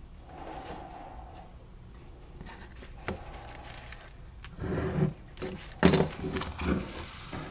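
Cardboard and flat wooden cutouts handled on a workbench: a run of rustles and dull thumps, loudest about six seconds in.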